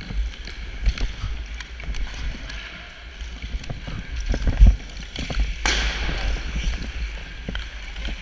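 Sled hockey sled gliding over the ice with a low rumble, while the picks on the player's sticks knock and scratch at the ice in a loose rhythm. A short hissing scrape of blades on ice comes about five and a half seconds in.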